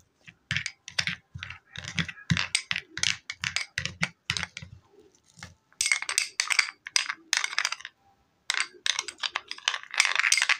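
Metal spoon stirring a thick paste of cornstarch, powdered milk and yogurt in a small white bowl, clicking and scraping against the bowl in a quick run of strokes, with a short pause about halfway.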